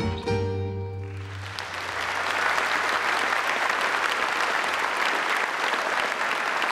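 Final chord of a tamburica band with upright bass ringing out, followed from about a second and a half in by an audience applauding.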